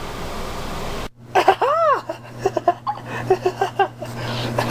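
Cartoon voices laughing in short repeated syllables, with a couple of rising-and-falling whoops, after about a second of hiss that cuts off suddenly.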